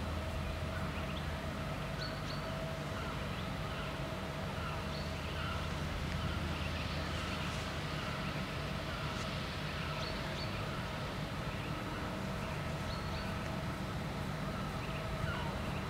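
Level crossing warning bells sounding a steady tone while the barriers are down, over a low steady hum, with scattered bird chirps.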